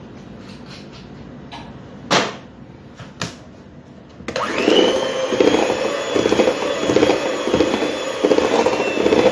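Two short knocks, then about four seconds in an electric hand mixer switches on and runs steadily, its beaters whirring and rattling in a stainless steel bowl of cake batter.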